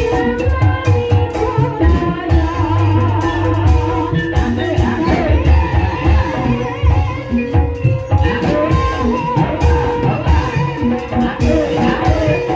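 Gending ebeg: live Javanese gamelan-style accompaniment for the hobby-horse dance, with steady drumming, held ringing metallophone tones and a singer's wavering voice over the top.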